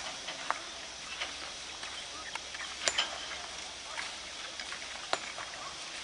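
Outdoor ambience: a steady high hiss with scattered, irregular sharp clicks and clinks. The loudest clinks come about three seconds in and again about five seconds in, each with a brief ring.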